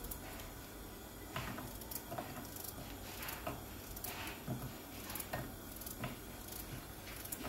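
A carrot being sliced by hand with a small knife, the rounds dropping onto a ceramic plate: about a dozen short, crisp clicks and taps at an irregular pace.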